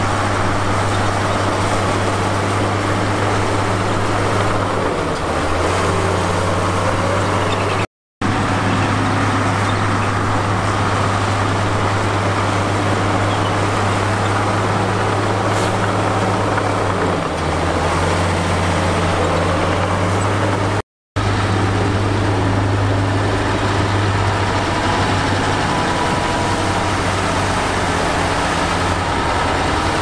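Heavy diesel engine of earthmoving machinery running steadily with a deep hum, its pitch shifting slightly a few times as the load changes. The sound breaks off twice for a split second.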